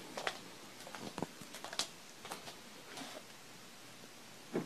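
Scattered light clicks and taps at irregular intervals, with no motor running.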